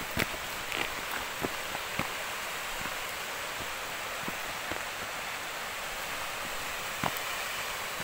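Steady rush of flowing water, with scattered crunching footsteps on a dirt path.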